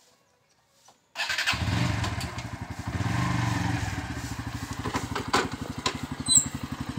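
A motorcycle engine starts about a second in and catches at once. It runs a little faster and louder for a couple of seconds, then settles to an even, pulsing idle.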